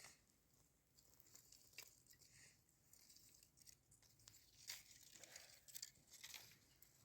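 Near silence, broken by faint scattered clicks and brief rustling.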